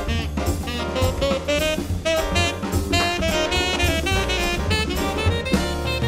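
Background jazz music: a horn melody over drum kit and bass, with a steady beat.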